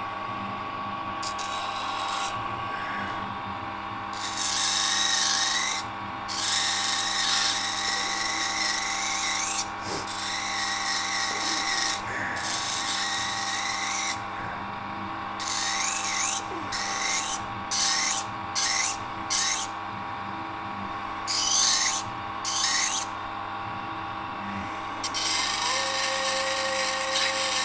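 A power grinder runs with a steady motor hum while a steel knife blank is pressed to it in repeated passes. Each pass is a burst of grinding noise a few seconds long, with a run of short quick touches around the middle, taking excess metal off the blank.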